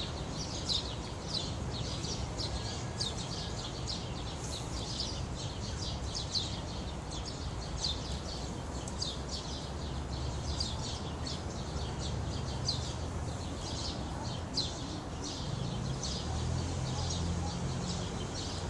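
Small birds chirping steadily outdoors, short high chirps repeating about two or three times a second, over a low steady rumble of background noise.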